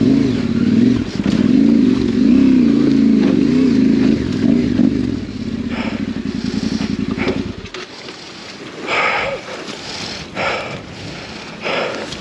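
Yamaha Ténéré 700's parallel-twin engine revving up and down again and again under load as the bike is worked up a steep rocky climb, then cutting out abruptly about two-thirds of the way through. After that, only a few short rushes of noise.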